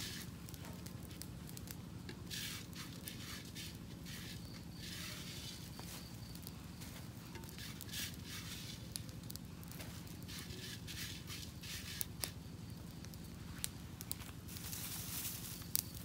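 Plastic bag crinkling and rustling in stretches as it is handled around a clay pot, over a wood fire crackling with scattered sharp pops.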